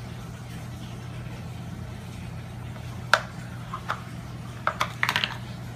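White plastic cones of a Nina Ottosson puzzle feeder knocking and rattling on its red plastic base as a cat noses and paws them aside to get at food: a few sharp clicks in the second half, the last ones in a quick cluster, over a steady low hum.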